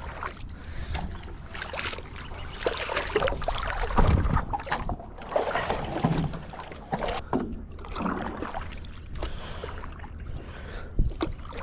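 A stand-up paddle board being climbed onto and paddled: knocks and scuffs of hands and knees on the deck, then paddle strokes splashing in the water.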